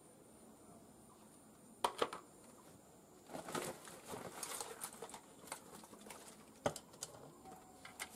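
Two sharp clicks about two seconds in, then a few seconds of plastic sack rustling and crinkling as a hand rummages inside it, followed by a few scattered clicks of tools being handled.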